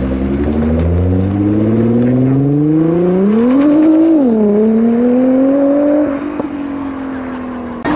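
Nissan GT-R engine accelerating hard, its note climbing steadily for about four seconds. It drops briefly, like an upshift, then climbs again. About six seconds in it falls away and quietens as the throttle is lifted.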